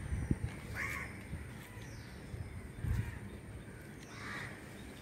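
A crow cawing twice, once about a second in and again near four seconds, with faint high descending chirps and a couple of low thumps on the microphone.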